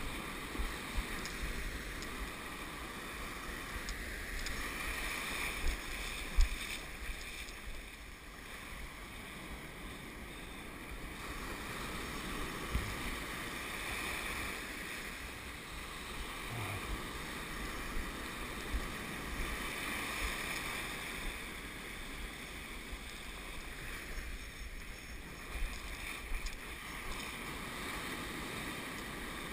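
Ocean surf breaking and washing in and out, swelling and easing every several seconds, with wind gusting on the microphone.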